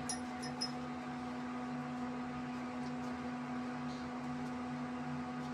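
Steady electrical hum of a running motor or appliance, with a slow throb underneath. A few faint light ticks come right at the start.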